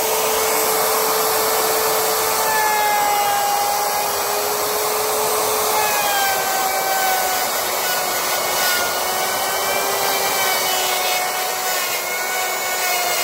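Electric router with a quarter-inch bit cutting a groove into a wooden floor: a loud, steady motor whine over the rasp of the bit chewing wood, the whine wavering slightly in pitch as it cuts.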